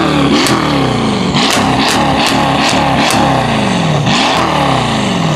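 Mercedes-AMG engine being revved, its pitch falling again and again as the revs drop, with sharp exhaust pops and cracks several times a second.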